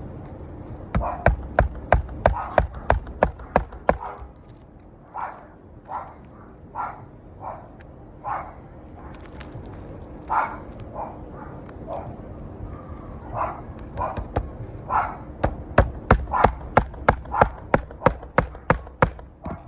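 Hammer driving roofing nails into asphalt shingles: two runs of quick, sharp strikes, one about a second in and one near the end. Between them a dog barks several times.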